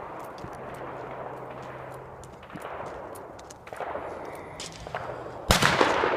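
A single loud gunshot about five and a half seconds in, with a tail that dies away over most of a second, after a stretch of low background noise.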